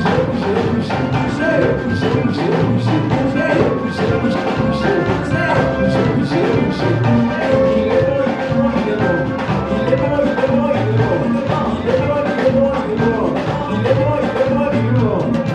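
Upbeat live praise and worship music, with a steady, driving drum beat under bending melodic lines.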